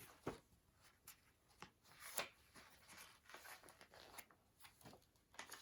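Faint paper rustling with scattered light clicks: the pages of a picture book being handled and turned.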